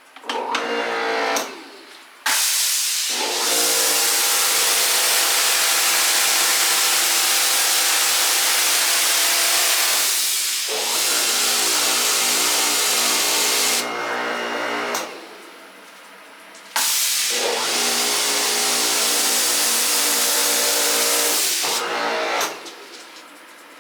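Karcher 2100 psi electric pressure washer running: its motor and pump hum under a loud hiss of spraying water, starting and stopping about four times as the trigger is squeezed and let go. In the third burst the hum drops lower in pitch.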